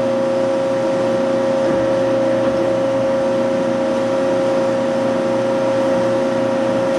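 Hyd-Mech H-40 horizontal bandsaw running under power: a steady machine hum with one strong high whine over it, unchanging throughout.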